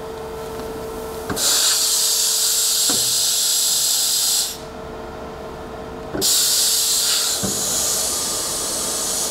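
Two bursts of air hissing, about three seconds each, each opening with a click, as the CNC lathe's parts catcher swings in to the main-spindle chuck and back out. A steady machine hum runs underneath.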